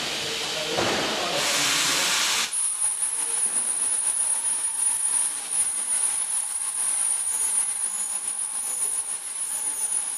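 Welding: a steady hiss that breaks off abruptly about two and a half seconds in, followed by a crackling, sizzling arc with a thin high whine on top.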